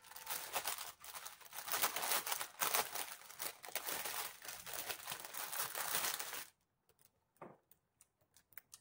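Clear plastic packaging bag crinkling and rustling as it is handled and opened. It stops about two-thirds of the way through, leaving only a few faint clicks.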